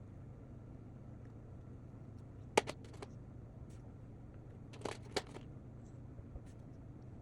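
A few light clicks and taps from drawing materials being handled on a desk, in two small clusters about two seconds apart, over a steady low hum.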